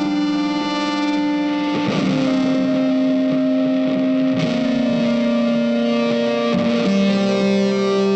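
Background music: sustained electric guitar with effects and distortion, holding long notes that change every second or two.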